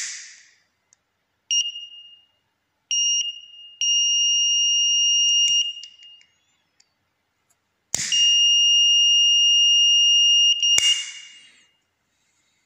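Piezo buzzer on an ESP32 flame-detector circuit sounding a steady high-pitched alarm tone: two short beeps, then one tone of about two seconds and one of nearly three. It sounds because the flame sensor is detecting the lighter's flame, and sharp clicks come from the lighter.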